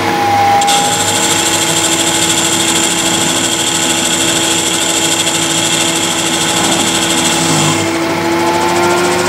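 CNC lathe spindle running with a steady motor whine while the tool takes a light finishing cut along a metal knob blank. A hiss from the cut starts just under a second in and stops near the end. The spindle's pitch dips at the start and climbs near the end as constant-surface-speed control changes spindle speed with the cutting diameter.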